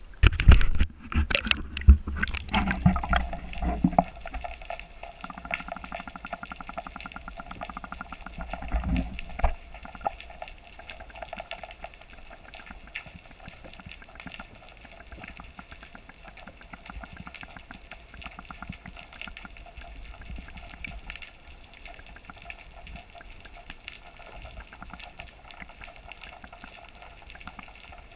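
Sea water splashing and bubbling as a camera goes under the surface, loud for the first few seconds, with another loud splash about nine seconds in; after that a steady, muffled underwater wash.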